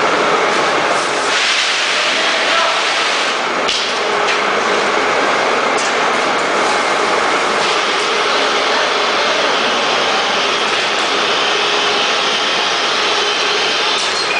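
Powder packaging machine with its automatic bag-sewing unit running: a loud, steady mechanical noise, with a couple of sharp clicks in the first half.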